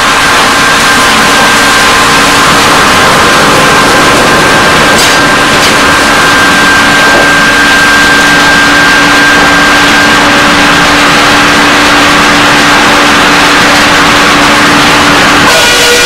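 Sawmill machinery running loud and steady: a constant mechanical din with several steady whining tones from the running saws and drives. Near the end the pitches change suddenly.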